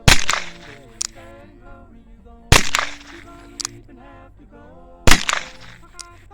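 Three shots from an RG-10 .22 Short revolver fired single action, about two and a half seconds apart, each round going off rather than misfiring. Each shot is followed about a second later by a small sharp click as the hammer is cocked for the next shot.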